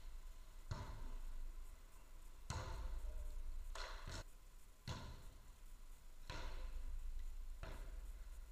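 A footvolley ball being struck by players' feet, heads and chests during a rally, about seven sharp thumps roughly a second apart, two of them in quick succession about four seconds in, each echoing briefly in the hall.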